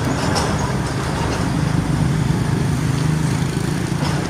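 Heavy road traffic, dominated by a steady, low diesel engine drone from a passing large truck.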